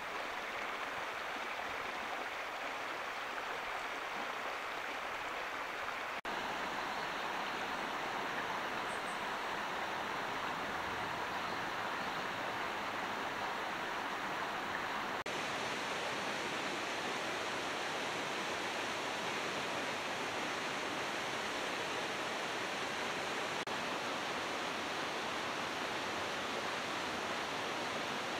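Flowing water rushing steadily, with no drips or splashes standing out. The sound changes abruptly a few times as one stretch of water gives way to another, first after about six seconds, when it gets slightly louder and fuller.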